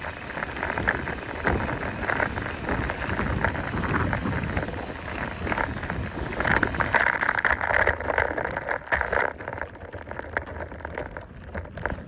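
Mountain bike rolling over a rough dirt trail: tyres crunching on the ground with rattling from the bike, heaviest partway through and lighter near the end.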